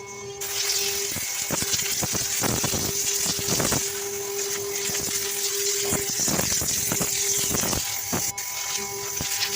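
CNC router carving wood: the spindle keeps up a steady high whine while the bit cuts, with a dense run of short cracks and knocks from the cutting. The whine drops out briefly a few times, most clearly near the end.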